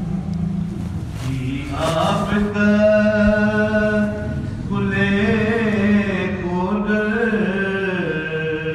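A male voice chanting a Sindhi salam, a Shia devotional mourning recitation, in long drawn-out notes that bend and rise and fall, over a steady low drone.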